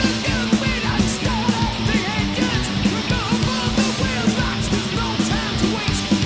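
Loud, fast punk-style rock music with a driving drum beat and electric guitars.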